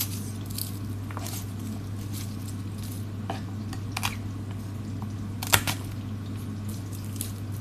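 Garlic cloves being peeled and trimmed with a small knife on a wooden cutting board: scattered papery crackles and sharp clicks, the loudest about five and a half seconds in, over a steady low hum.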